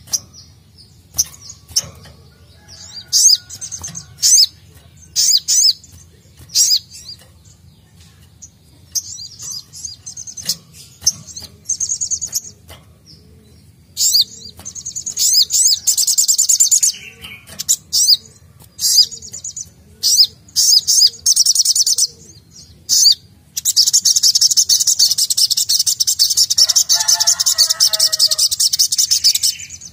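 Sogok ontong (sogon) sunbird singing: sharp, high chips and short bursts of song, growing into longer rapid trills and ending in one unbroken high trill over the last six seconds.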